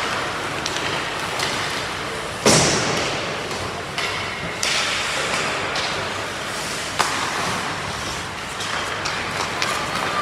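Ice hockey play on a rink: skates scraping the ice with sticks and puck knocking, and one loud bang about two and a half seconds in, with smaller knocks around four and seven seconds in.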